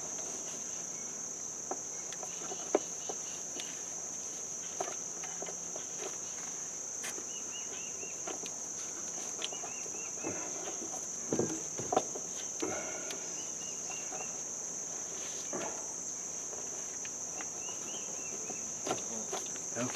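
Steady high-pitched trilling of insects, with a few light clicks and knocks from hands working the belt onto the tractor's pulleys.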